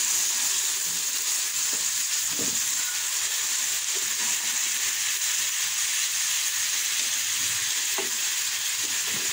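Diced chicken in a yogurt-and-spice masala sizzling steadily in a non-stick frying pan, stirred with a wooden spatula, with a few spatula strokes against the pan.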